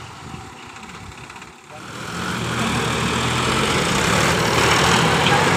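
Sonalika three-cylinder diesel tractors working together under heavy load, their engines rising and running hard from about two seconds in. They are straining against a manure-laden trailer that stays stuck.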